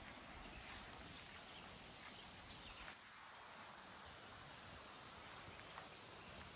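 Near-silent outdoor ambience: a faint steady hiss with a few faint, short bird chirps falling in pitch, scattered through.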